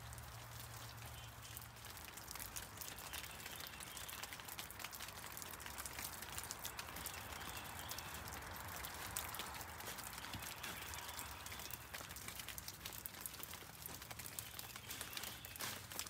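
Leftover rainwater dripping off a rock overhang and the trees: many small, faint, scattered drips.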